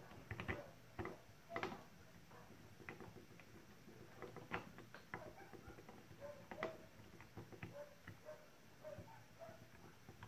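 Faint, irregular clicks and taps of plastic cordless-drill parts being handled and fitted together by hand as the trigger switch and housing are reassembled.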